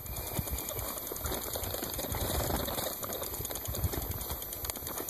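Bicycle riding over a rough, overgrown grassy trail: tyres swishing through the grass, with a busy, irregular rattle and clatter of the bike over the bumps.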